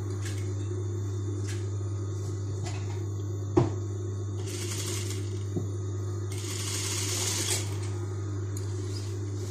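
Juki industrial sewing machine at work on white cloth: a steady motor hum, with short spells of stitching and cloth rustling. A sharp click comes about three and a half seconds in.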